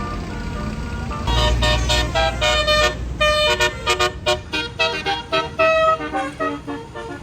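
Tour bus's Basuri telolet horn playing a fast melody of short, stepping notes, starting about a second in and fading toward the end. A low rumble sits under the first couple of seconds of it.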